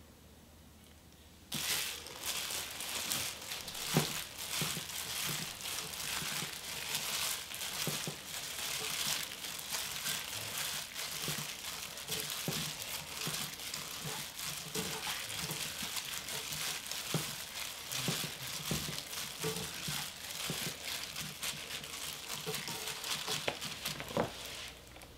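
A hand in a disposable plastic glove tossing and squeezing seasoned bracken fern stems in a frying pan: continuous, irregular crinkling of the glove with small clicks as the stems are worked. It starts about a second and a half in and stops shortly before the end.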